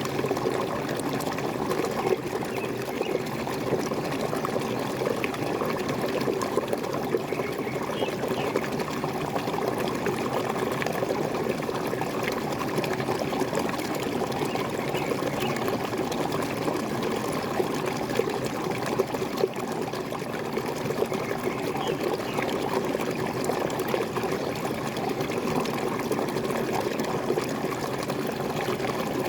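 Waterfall pouring and gurgling steadily, an even rush of water with no breaks.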